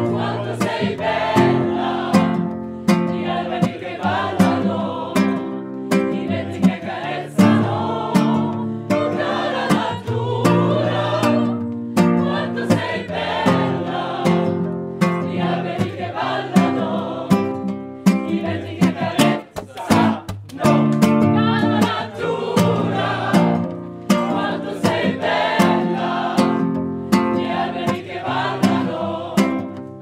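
A group of men's and women's voices singing a song together to a strummed acoustic guitar. The voices drop away briefly about twenty seconds in before the singing resumes.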